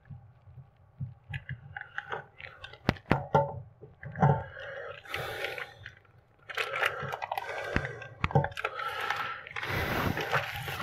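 Scattered sharp clicks of small plumbing fittings being handled, then a clear plastic bag crinkling as the fittings in it are rummaged through, from a little past the middle on.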